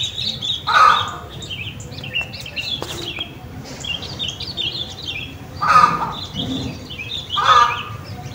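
Outdoor garden recording: small birds chirping in rapid short notes throughout, with three louder calls from poultry, one near the start and two in the second half.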